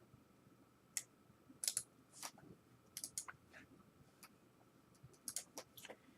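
Faint typing on a computer keyboard: scattered short key clicks at an uneven pace, some in quick pairs.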